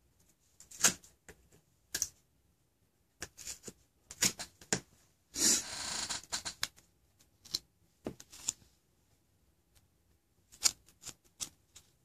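Pieces of duct tape being handled and folded: scattered short crinkles and taps, with one longer crackling rustle about five and a half seconds in.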